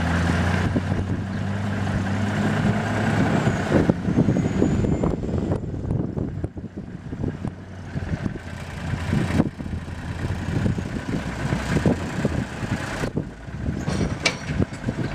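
Heavy diesel engine of a loaded log truck running as the truck drives past, a steady low drone at first. From about four seconds in it is largely covered by irregular, gusty rumbling noise.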